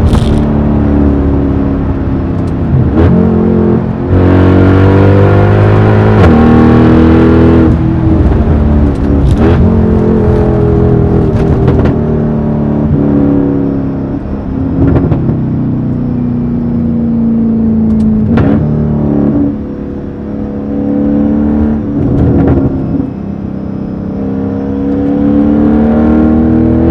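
Mercedes-AMG E63's V8 engine and loud exhaust pulling hard through the gears. The pitch climbs and drops back about eight times at the shifts, with a sharp crack from the exhaust at several of them.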